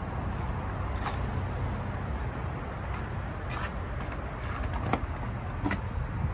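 Keys jangling on a key ring, with a few short sharp clicks as the truck's cab door is unlocked, over a steady low rumble.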